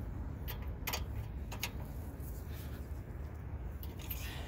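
A few light metallic clicks and clinks of a socket being fitted onto the castle nut of an outer tie rod end, to turn the nut further and line up the cotter pin hole, over a steady low rumble.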